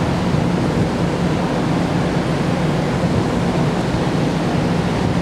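Car ferry under way at sea: a steady rush of wind and water, with a constant low hum from the ship underneath.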